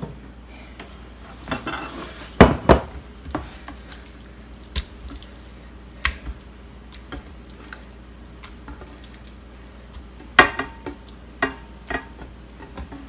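Raw chicken breast cubes being moved by hand from a glass baking dish into a glass mixing bowl, with scattered knocks and clinks of the glassware. The loudest knocks come about two and a half seconds in and again about ten seconds in.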